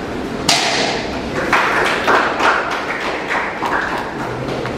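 Sharp snaps and thuds from the strikes and stances of a taekwondo form: one loud hit about half a second in, then a quick run of about six more.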